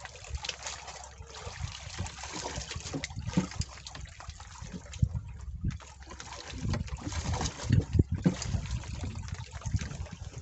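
Water splashing and trickling unevenly, over irregular low thumps.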